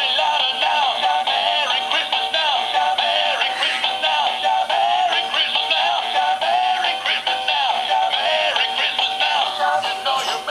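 Singing plush puppy toy playing a sung song through its small speaker, thin with almost no bass.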